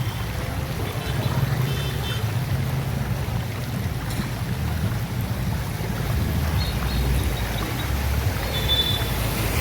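A steady low rumble under an even wash of noise, with no speech.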